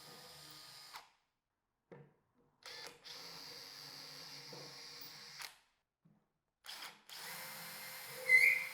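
Power drill with a 2 to 4 mm bit pre-drilling holes in the corners of a fridge cabinet, running in three bursts of a few seconds with short pauses between them. A brief sharp squeal near the end is the loudest moment.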